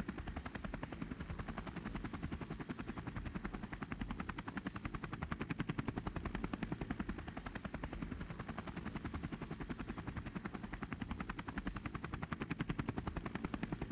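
Toy rescue helicopter's rotor sound effect: a rapid, even chopping that runs steadily.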